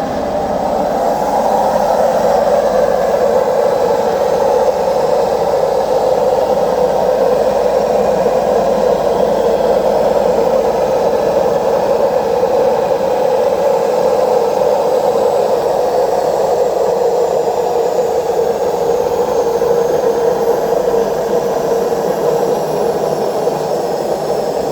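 Washing machine spinning with a loud, steady jet-engine-like roar from its drum bearings: worn drum bearings, which need replacing together with the seal.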